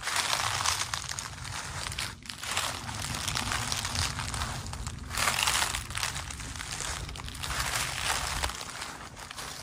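Footsteps crunching through dry fallen leaves, steady walking with brief pauses about two and five seconds in.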